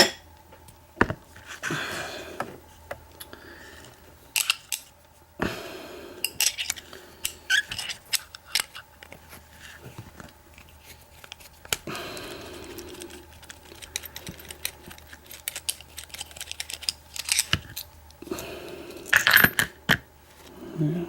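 Sesamee 936 round-body steel padlock being taken apart by hand: irregular sharp metallic clicks, taps and short scrapes of its parts being handled and removed.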